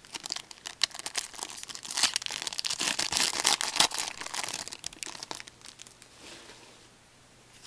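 A Pinnacle Mint hockey card pack wrapper crinkling and tearing as it is opened by hand. The dense crackling is loudest in the middle and dies away about five and a half seconds in.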